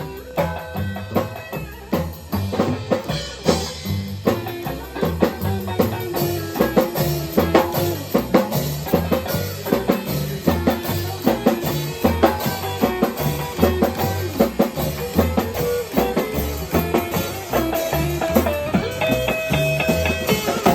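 Live rockabilly band playing an instrumental break between verses, the drum kit and bass keeping a steady beat under sustained lead instrument lines.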